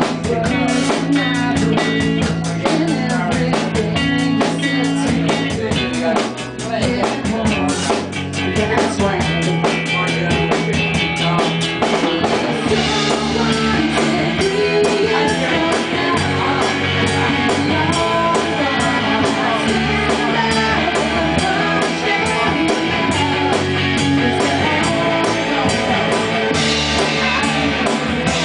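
Live rock band playing: drum kit keeping a steady beat, bass guitar and electric guitar, with a woman singing lead.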